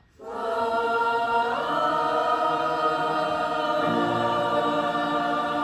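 Ninth-grade choir singing a long held chord that enters just after a brief silence. The upper voices step up about a second and a half in, and the lower voices shift near four seconds.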